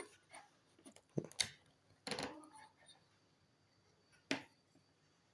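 A few short metallic clicks and scrapes, sparse and well apart, from fingers working the ring pull on the lid of a small can of tuna.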